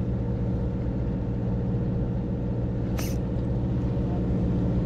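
Fishing boat's engine running with a steady low hum. A brief high squeak comes about three seconds in.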